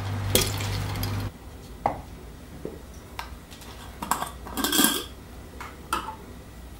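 Light clinks and knocks of glass mason-jar drinking glasses, with their metal lids and straws, being handled. The loudest clinks come a little after four seconds in, with a brief ring, after a low hum in the first second or so.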